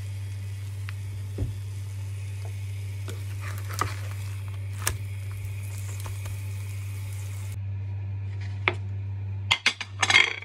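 Beaten eggs frying in a non-stick pan with a faint sizzle over a steady low hum, and a few light taps and scrapes of a metal spatula as the egg is folded. Near the end come a quick run of sharp clinks of plates and cutlery.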